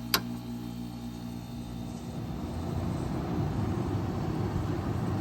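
1990 Kenmore 5,200 BTU slider/casement air conditioner running, its Sanyo rotary compressor and fans giving a steady hum. A single sharp click comes just after the start. From about two seconds in, a louder, fluctuating rush of air takes over.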